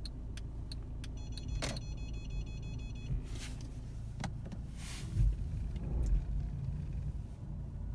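Low steady engine hum inside the cabin of a Mercedes-Benz E-Class Coupé reversing under Active Parking Assist. About a second in comes rapid electronic beeping, lasting about two seconds, typical of the parking sensors' proximity warning. A few brief swishes and low knocks follow as the car moves.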